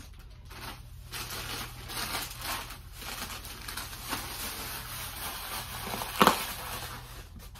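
Plastic candy packaging rustling and crinkling as it is handled and set down, with irregular crackles and one louder, sharper sound about six seconds in.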